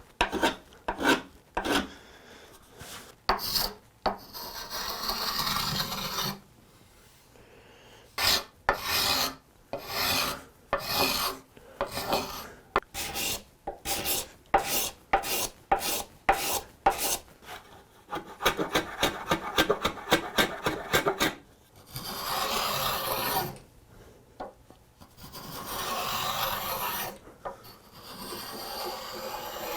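A hand tool being worked along the edge of a quartersawn white oak chair part to put a small chamfer on its top edge: short scraping strokes at about two to three a second, with some longer continuous passes.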